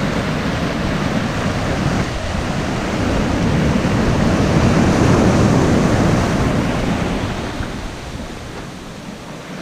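Ocean surf breaking and washing up the beach. It swells to a peak about halfway through and then eases off.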